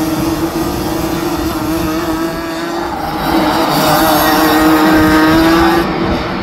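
A pack of Rotax Max 125cc two-stroke racing kart engines running hard, a steady buzzing drone. It grows louder from about three seconds in and drops back near the end.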